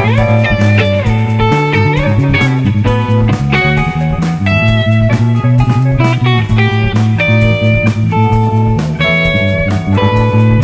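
Live rock band instrumental: an electric guitar plays a sustained lead line, with notes bending in pitch near the start, over bass guitar and a drum kit.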